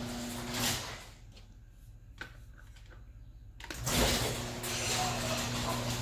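Overhead garage door opener running with a steady motor hum and the door rumbling along its tracks. It stops about a second in; after a quiet stretch with one click, there is a thump and the opener starts running again about four seconds in.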